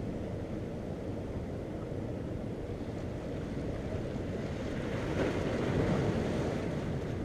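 Ocean surf washing against the jetty over a steady low rumble of wind on the microphone; a wave swells up and breaks about five seconds in, then eases off.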